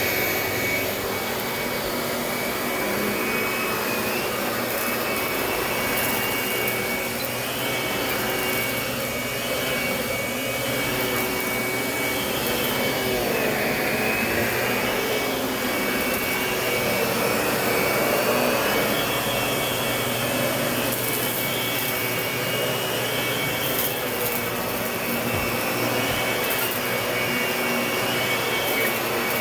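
Lindhaus vacuum cleaner running steadily with a thin high whine, its sound wavering a little as it is worked across the floor.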